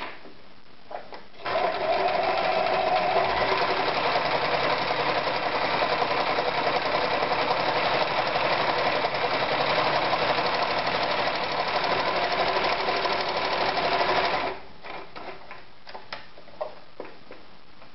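Privileg Super Automatik 5021 electric sewing machine running steadily for about thirteen seconds as it sews a row of stitches, then stopping. A few light clicks follow.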